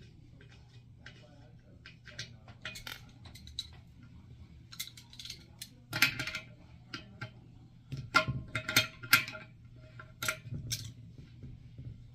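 Small metal clicks and clinks of hand tools and screws as the toilet tank's screws are taken off to reach the worn rubber gaskets. A few louder clinks ring briefly, about six seconds in and again around eight to nine seconds in.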